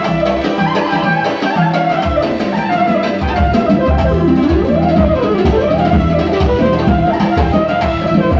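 Live clarinet and electronic keyboard music. The clarinet plays a winding melody that bends and slides in pitch over keyboard accompaniment, and a steady drum beat comes in about two to three seconds in.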